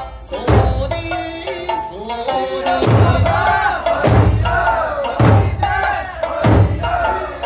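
Okinawan eisa performance music: big drums are struck together about once a second, under singing and chanted group calls from the performers.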